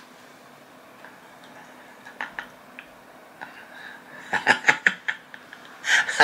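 Strawberry dipped into a small glass jar of Nutella, making a few light clicks and knocks against the glass, with a quick cluster of them about four seconds in.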